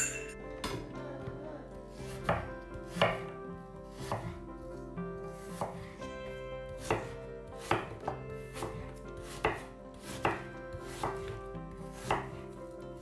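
Kitchen knife slicing peeled apples into wedges on a wooden cutting board: a sharp knock each time the blade goes through and meets the board, about two a second, unevenly spaced.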